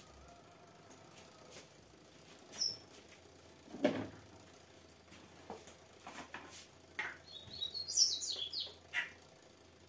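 Plastic bottles being picked up and set down: scattered light knocks and rustles, one louder knock about four seconds in. Near the end comes a quick run of short high chirps.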